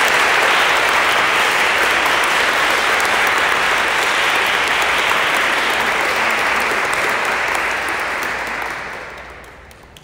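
Applause from a small gathering, holding steady and then dying away near the end.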